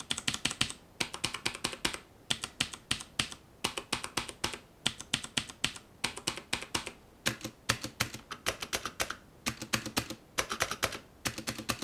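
Typing on a mechanical keyboard with clicky blue switches (Cherry MX Blue type): rapid, sharp key clicks in quick runs with short pauses between them.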